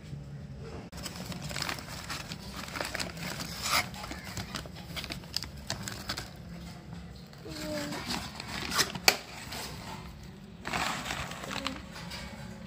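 Brown kraft-paper mailer being crumpled and torn open by hand: an irregular crinkling and rustling, with a couple of sharper rips, the loudest about nine seconds in.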